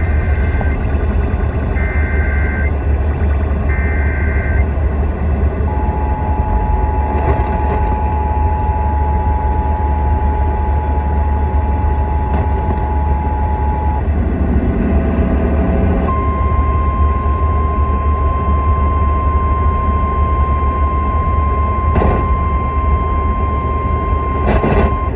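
Emergency Alert System signal: three short screeching SAME data-header bursts about a second apart, then the two-tone EAS attention signal held for about eight seconds, then after a short break a single steady weather-radio alert tone. A loud low hum runs underneath.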